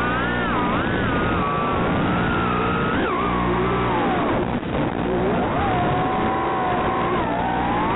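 The brushless motors and propellers of a 3-inch toothpick FPV quadcopter whining, the pitch gliding up and down as the throttle changes during flight.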